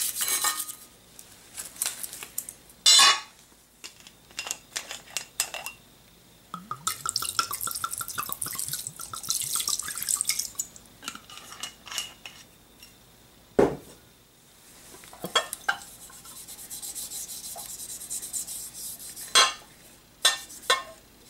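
A Glock slide being cleaned in a glass dish. Scratchy rubbing at first, then alcohol gurgling out of a bottle and splashing over the slide for a few seconds. Several sharp knocks of the slide against the glass dish come through, with light wiping between them.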